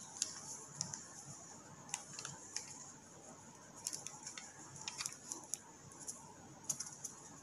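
Faint, scattered light clicks and rustles from a plastic packet and a plastic funnel being handled as baking soda is poured through the funnel into a balloon.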